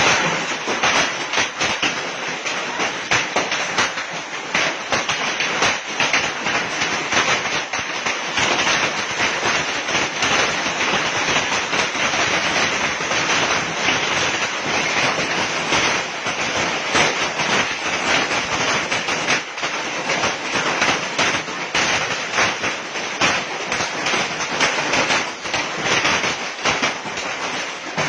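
Heavy hailstorm: a dense, continuous clatter of hailstones striking hard surfaces over the hiss of rain.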